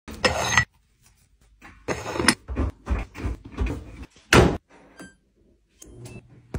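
Front-loading clothes dryer door pulled open with a sharp clunk, followed by a run of rustles and soft thuds as a load of dry clothes is dragged out of the drum, with a louder clunk near the middle.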